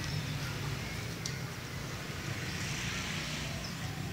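Outdoor ambience: a steady low rumble, with a few faint high chirps and a single brief click about a second in.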